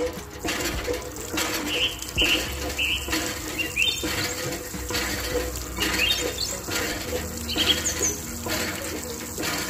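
Water from a miniature hand pump trickling and splashing through a thin tube into a small plastic basin as the pump handle is worked. Short high chirps come and go throughout.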